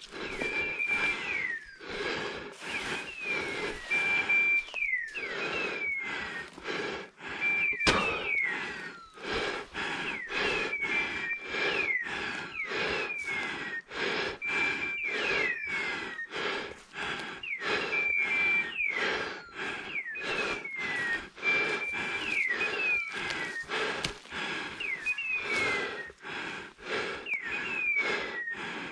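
Hunting dog's electronic beeper collar sounding a short beep about every three and a half seconds, each followed by falling chirps, over continual footsteps and rustling through undergrowth.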